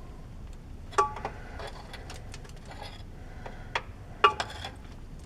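Steel pry bar clinking and knocking against the rusted shifter lever arm on the transmission as it is worked loose: a handful of irregular sharp metallic clicks, a few with a brief ring.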